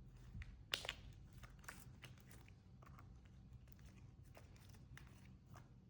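Faint, irregular squishing and clicking of slime being kneaded and mixed by hand, over a low steady hum.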